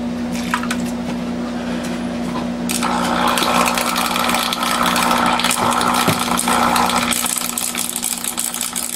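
Steady hum of a running Dell Optiplex 780 desktop computer with its cover off. About three seconds in, a loud hissing rush joins it for roughly four seconds, then fades to a thinner high hiss.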